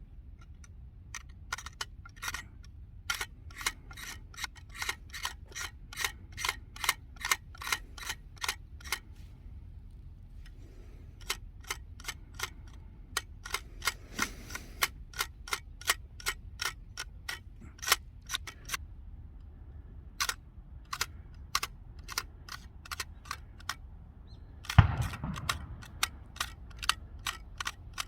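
Runs of sharp, evenly spaced clicks, two to three a second, with a short break between runs and one louder knock near the end.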